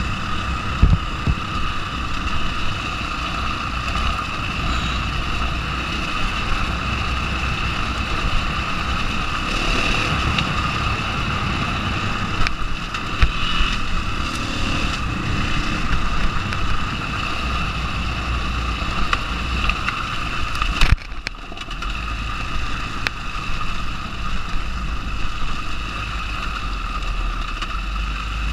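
KTM 500 dirt bike's single-cylinder four-stroke engine running steadily under throttle along a rough trail, with wind noise on the helmet-camera microphone. A sharp knock about 21 seconds in, after which the engine's low rumble drops away for about a second.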